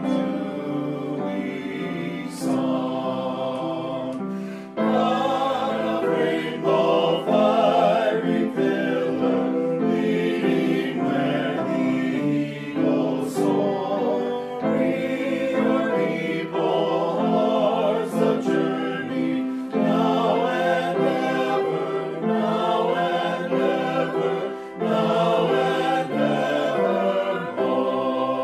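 Choir singing a hymn, with short pauses between phrases about five seconds in and near the end.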